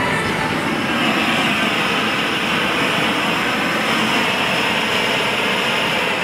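Steady hiss of gas burners in a glassblowing studio, a hand-held gas torch flame playing on a glass bowl on the blowpipe.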